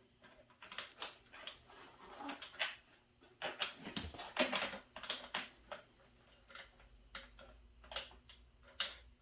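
Small bolts and nuts being handled and started into their holes on a pressure washer's holder: irregular light clicks and rattles of the parts knocking together.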